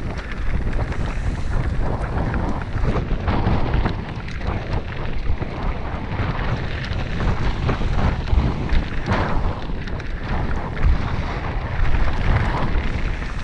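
Wind buffeting a helmet-mounted camera's microphone, over the crunch and rattle of mountain bike tyres rolling across a loose, stony gravel track, with many small knocks from stones and the bike.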